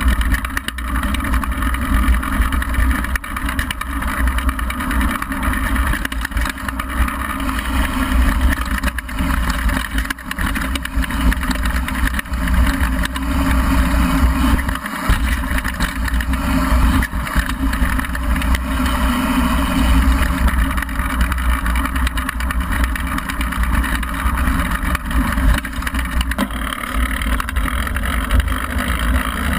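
Wind buffeting a GoPro's microphone on a downhill mountain bike ridden at speed, with the knobby tyres crunching over loose gravel and the bike knocking and rattling over bumps.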